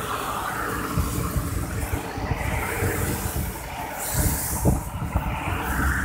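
Road and traffic noise heard from inside a moving vehicle: a steady low rumble with swells of passing traffic, and a brief hiss about four seconds in.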